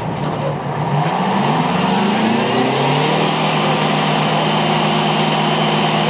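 Workover pulling unit's engine revving up, its pitch rising for about two seconds and then holding at a steady high speed as the rig hoists the traveling block.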